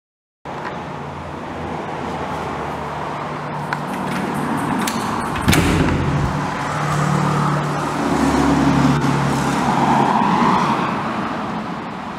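Street traffic noise through an open balcony door, with a vehicle swelling past about eight to ten seconds in and a single sharp knock about five and a half seconds in.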